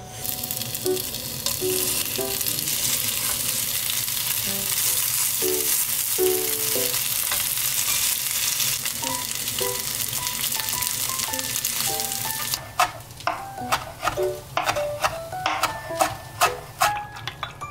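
Skewered rice balls frying in oil in a nonstick pan, an even sizzle for about the first twelve seconds. Then a chef's knife chops green onions on a cutting board in quick, sharp strikes, two or three a second. Light background music plays over both.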